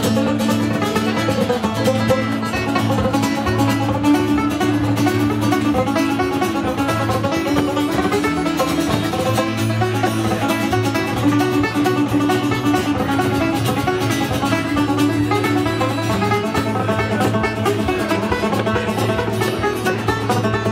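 Irish traditional tune played live on banjo, with acoustic guitar strumming chords underneath and a bodhrán keeping the beat, in a steady, unbroken run.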